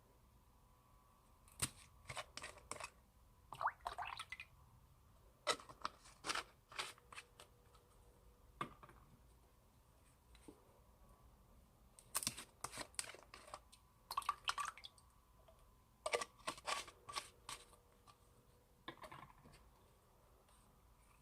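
Old slime being handled, giving short bursts of crackling clicks and pops with quiet pauses between them.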